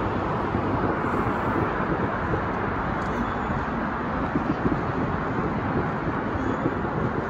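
Steady city traffic noise from a wide avenue far below, an even rumble and hiss without distinct events.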